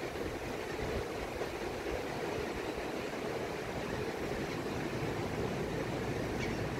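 Ocean surf breaking on a beach, heard as a steady, even wash with a low rumble underneath.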